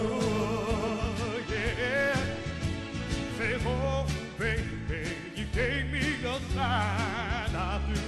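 Male soul vocal group singing live over bass and drums, with long held notes wavering in a strong vibrato.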